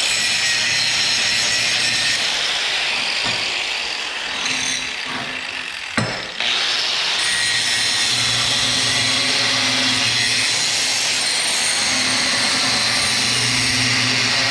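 Electric grinder grinding on steel scrap to clean a spot for welding, with a steady motor hum under the grinding. It eases off for a few seconds around the middle, gives a sharp clack about six seconds in, then bites back in at full level.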